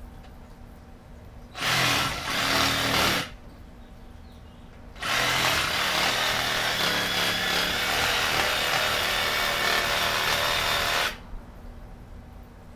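DeWalt cordless reciprocating saw with a 12-inch wood-cutting blade cutting through the roots of a bush root ball. It runs briefly for about a second and a half, pauses, then makes a longer cut of about six seconds.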